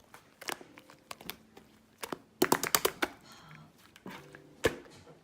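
Slime being squeezed and poked by hand, giving sticky pops and clicks: a quick run of sharp clicks about two and a half seconds in and one loud pop near the end.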